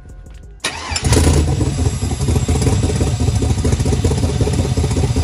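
A cammed 5.3-litre LS V8 in a Chevy Silverado cranks and fires about half a second in, then settles into a loud idle. The owner puts the extra loudness down to a small exhaust leak at one of the headers.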